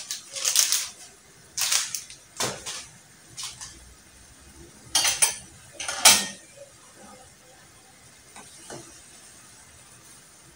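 Metal kitchen utensils clinking and knocking against a plate and a pan: several short, sharp clatters, the loudest about six seconds in, then only a couple of faint taps.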